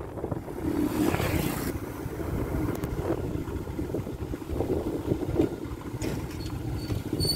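Motorcycle engine running steadily as the bike rides along, with road and wind noise.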